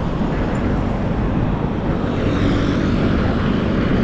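Street traffic: a steady engine drone, with a vehicle passing about halfway through.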